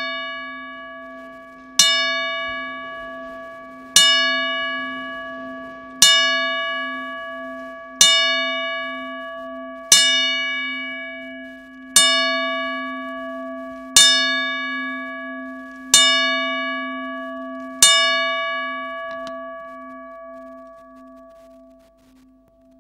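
A bell tolled slowly, about one strike every two seconds, each note ringing on and fading; after the last strike the ringing dies away near the end. It is the boxing ten-bell salute, tolled in mourning for someone who has died.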